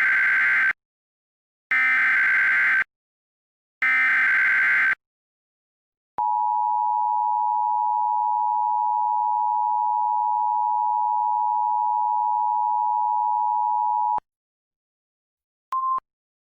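Emergency Alert System SAME header: three one-second bursts of warbling data tones, about two seconds apart. Then the NOAA Weather Radio 1050 Hz warning alarm tone holds steady for about eight seconds, and a brief blip of a similar tone comes near the end. The sequence is the alert signal that opens a tornado warning broadcast.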